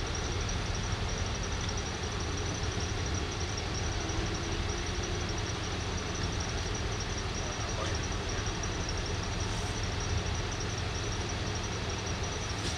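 Steady low rumble of idling emergency-vehicle engines, with a thin, steady high tone above it.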